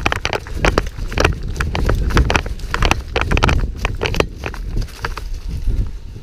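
A player running on foot, uneven heavy footfalls about two to three a second, with gear jostling and a low rumble of wind and movement on the microphone.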